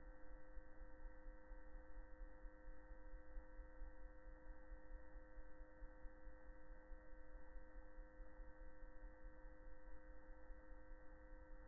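Near silence with a faint steady hum of a few held tones.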